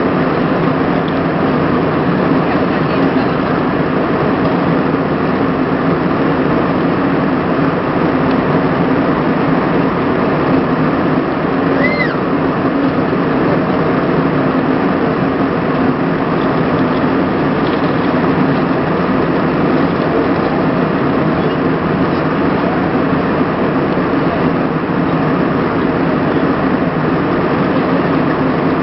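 Steady, even cabin noise inside an Airbus A320 airliner in flight: engine and airflow noise holding constant, with a short high chirp about twelve seconds in.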